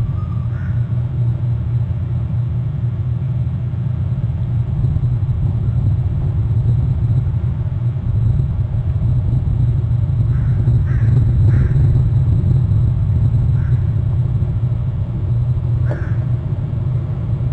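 Steady low rumble of wind buffeting an outdoor microphone, with a few short bird calls on top, three in quick succession around the middle and one near the end.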